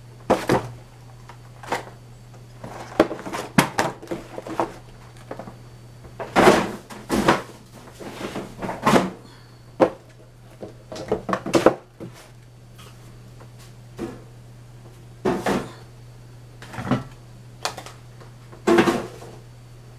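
Household items being moved around and set down on a table: irregular knocks, clatter and rustling, spaced a second or two apart. A steady low hum runs underneath.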